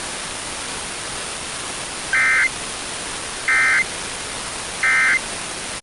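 Emergency Alert System end-of-message (EOM) tones: three short, buzzy bursts of digital data about 1.4 s apart, marking the end of the alert. Steady FM radio hiss runs underneath.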